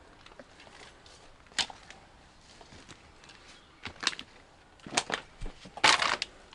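Footsteps crunching over litter and debris and brushing through undergrowth: scattered sharp steps, then a longer rustling crunch near the end, the loudest sound.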